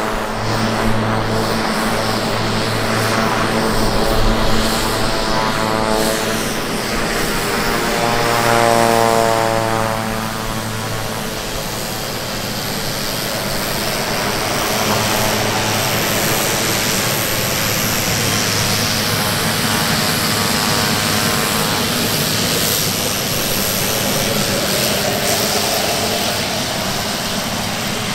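Grob G120TP's Rolls-Royce 250 turboprop and propeller running at taxi power, a steady propeller drone. About eight to ten seconds in, its pitch falls as the aircraft taxis past.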